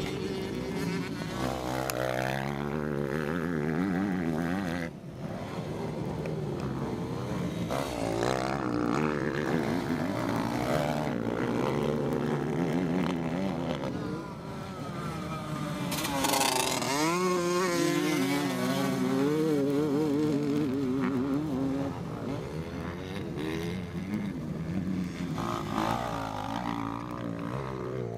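Motocross dirt bikes racing, their engines revving up and down through the gears as they go by, several at once. The loudest pass comes about halfway through.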